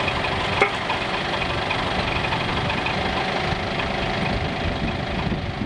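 Forklift engine idling steadily, holding a steel arm up on a hanging scale. A single sharp knock about half a second in.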